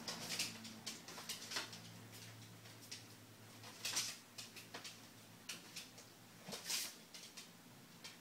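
Paper rustling and crinkling in short bursts as a pocket beagle noses and paws through a bin of loose papers, with scattered light clicks in between.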